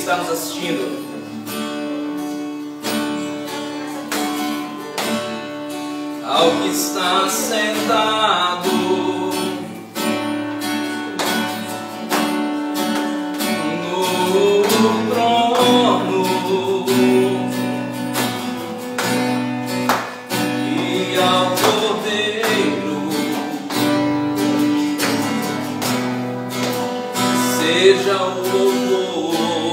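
Acoustic guitar strummed steadily as chord accompaniment, with a man's voice singing in several stretches.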